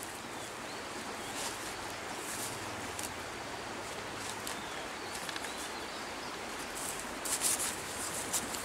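Hands rustling banana leaves and scraping loose soil on the ground, with a cluster of louder scrapes near the end, over a steady outdoor background hiss.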